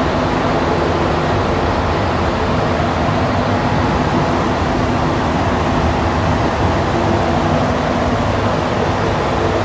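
Montreal Metro Azur rubber-tyred train running between stations, heard from inside the car: a steady rumble with a low electric hum, at a constant level.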